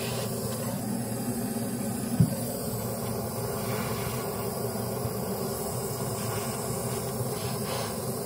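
Handheld butane gas torch burning with a steady hiss, its flame gently heating a silver ring's shank so the borax flux melts before soldering. A single sharp click about two seconds in.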